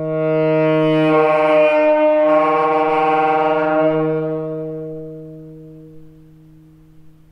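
Saxophone holding one long low note that swells up and grows brighter, wavers briefly about two seconds in, then slowly fades away.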